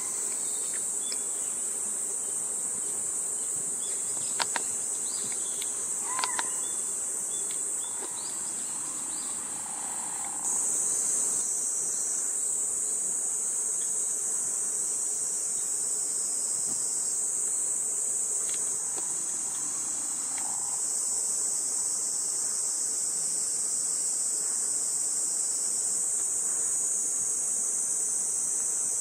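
Steady high-pitched insect chorus that grows louder about ten seconds in, with a few brief clicks and short chirps in the first several seconds.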